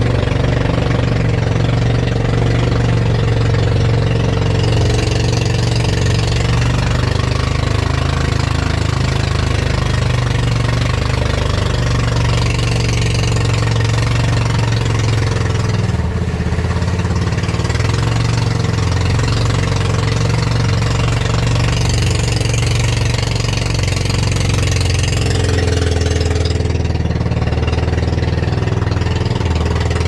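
Fishing boat's engine running steadily under way: a constant low drone with no change in speed.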